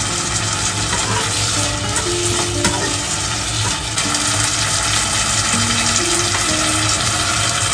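Tomatoes and Pixian chili bean paste sizzling in a small electric pot as they are stirred, then water poured in from a plastic bottle about four seconds in, the stir-fry stage turning into soup. Soft background music plays underneath.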